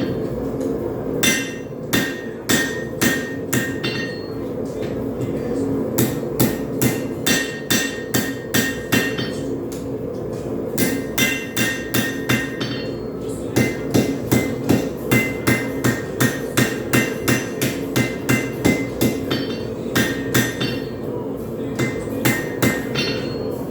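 Hand hammer striking a hot railroad spike on an anvil as the knife blade is forged, in several runs of roughly two blows a second with short pauses between, each blow ringing briefly. A steady low roar of the propane forge runs underneath.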